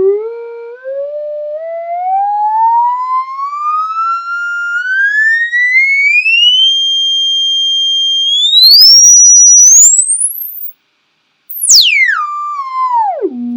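Computer-generated sine-wave test tone at a fixed amplitude, gliding upward in small steps from a low hum to a piercing whistle and on past the top of hearing. It drops out for under a second, then sweeps rapidly back down to a low tone.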